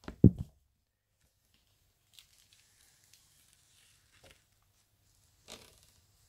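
Handling noise: a sharp knock about a quarter second in, then faint scattered rustles and one short scrape near the end.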